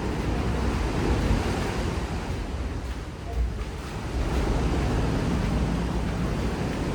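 Ocean surf washing in with a steady rush, and wind buffeting the microphone with a low rumble. The rush eases about three seconds in, then swells again a second later.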